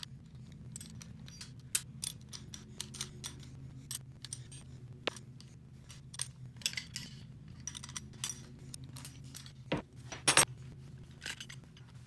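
Irregular small metallic clicks and clinks of metal hand tools being handled, with a couple of louder clacks near the end, over a steady low hum.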